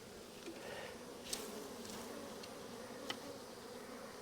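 A swarm of honeybees buzzing steadily as a low, even hum, with two light clicks about a second and about three seconds in.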